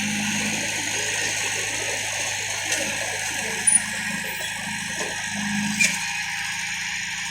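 Heavy-equipment diesel engine running steadily, its low drone swelling and easing every second or two, with a few sharp clicks midway.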